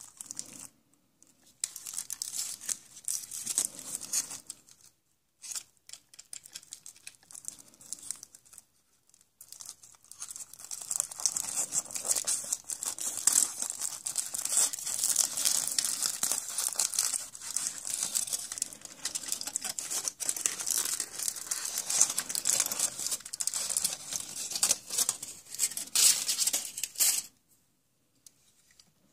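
A thin wrapper being crinkled and torn open by hand, as when unwrapping a surprise egg: short bouts of crackling at first, then almost continuous crinkling and tearing that stops suddenly near the end.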